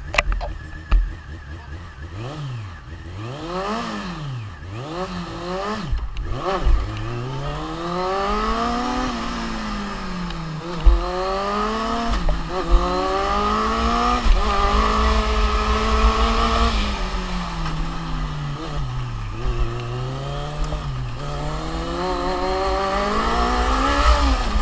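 Formula Student race car engine, heard from on board. It revs in short blips, then accelerates, its pitch climbing and dropping sharply several times as it shifts, before falling and rising again through the corners.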